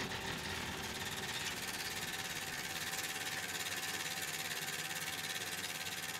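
Film projector running: a steady, fast, even mechanical clatter over hiss.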